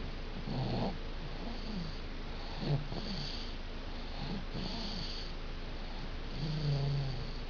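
A sleeping baby snoring: a string of short snores about once a second, with hissy breaths between them and a longer, pitched snore near the end.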